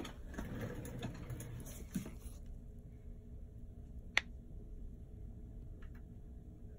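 Faint handling sounds of gloved hands and a plastic paste tube at a paper mixing pad: soft rustling for the first couple of seconds, then one sharp click about four seconds in as the tube tip meets the pad, and a couple of faint ticks near the end.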